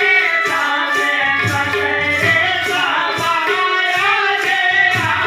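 Devotional bhajan music: a melody line over a steady hand-drum beat.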